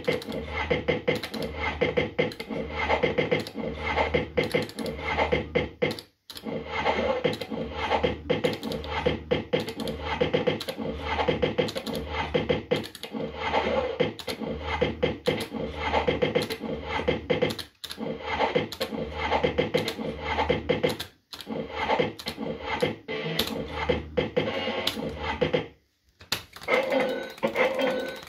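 JPM Red Hot 6 fruit machine running through repeated games, its electronic music and sound effects going on with a steady pulsing beat and many rapid clicks. The sound cuts out briefly four times.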